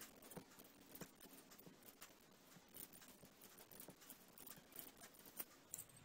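Near silence with faint, irregular clicks of knitting needles tapping together as a row of purl stitches is worked.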